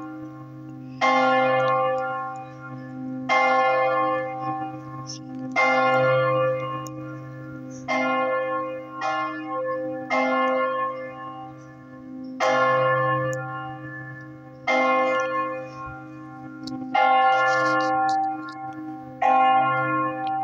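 Church bell striking steadily, about once every two seconds. Each stroke rings on and fades, over a low hum that carries on between strokes.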